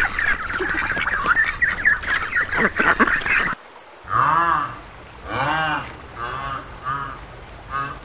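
Mallard ducks quacking in a busy, overlapping chorus. About three and a half seconds in this cuts off suddenly, and a hippopotamus calls about five times, each call rising and falling in pitch.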